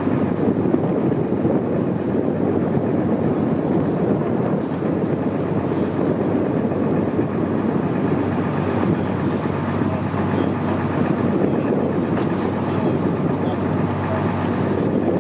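Motorboat engine running steadily with a low hum, under a constant rush of wind and water noise.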